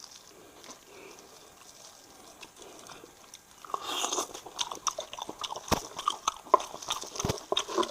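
Close-miked eating of spiced sheep's head meat: faint for the first half, then a dense run of bites, crunches and wet chewing clicks from about halfway in.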